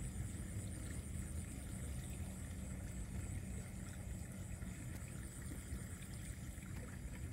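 Night ambience: a steady low rumble under a continuous high, pulsing trill of insects.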